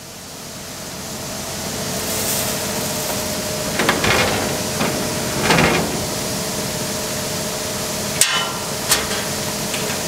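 Grain-handling equipment at the wheat unloading pit running steadily, with a faint hum in it, as the last of the wheat is emptied from a gravity wagon. Sharp knocks come about four seconds in and several more times after that.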